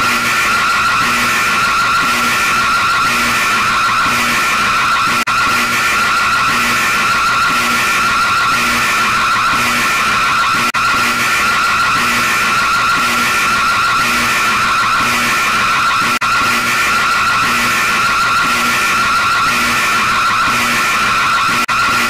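Emergency alert system (EAS) alarm sounding continuously and loudly: a harsh, screeching high tone with a fast warble, over a low pulse that repeats a little more than once a second.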